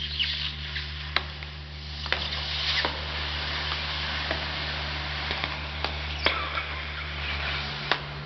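Pierced DJI Phantom 2 lithium-polymer battery hissing as it vents smoke, with sharp crackling pops every second or so. A hydraulic press hums steadily underneath.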